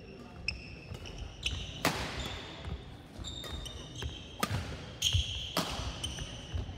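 Badminton rally: sharp racket hits on the shuttlecock, four of them, about two seconds in and then three in quick succession near the end, with short high squeaks of shoes on the court floor between the shots.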